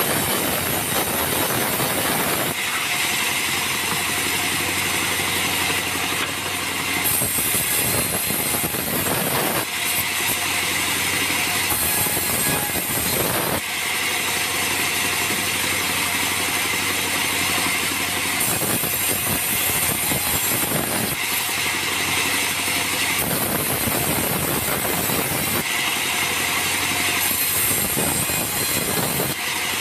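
Sawmill bandsaw running and cutting acacia logs in repeated passes: the noise of the blade in the wood rises over the steady hum of the machine about six times, with stretches of the machine running alone between cuts.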